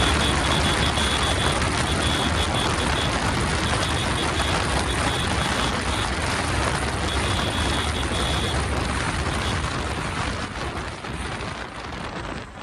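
Yamaha sport motorcycle running at highway speed, its engine drone mixed with heavy wind rush on the camera microphone; the sound eases off a little near the end.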